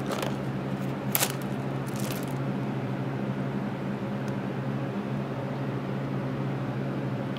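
A steady low hum, with a few light metallic clicks about one and two seconds in and a faint one near four seconds as a telescoping magnetic pickup tool grabs steel-core armor-piercing bullets.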